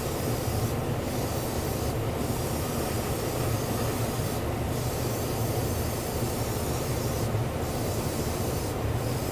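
Airbrush spraying a light mist of paint with a steady hiss, over the steady running of a spray-booth extractor fan. The spray's hiss breaks off briefly a few times as the trigger is let up.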